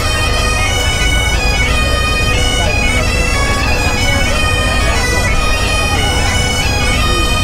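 Bagpipes playing a melody over a steady drone, with a steady low rumble underneath.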